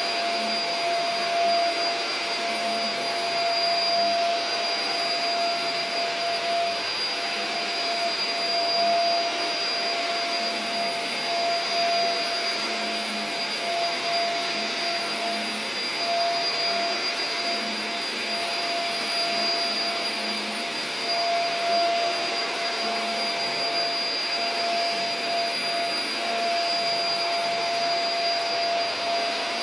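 Upright vacuum cleaner running steadily as it is pushed back and forth over a rug: a constant rushing of air with a steady motor whine.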